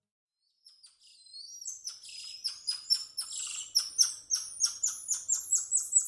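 Golden lion tamarins giving squeaky calls. The high-pitched chirps start faint about a second in and build into a quick, regular run of short falling notes, about four a second.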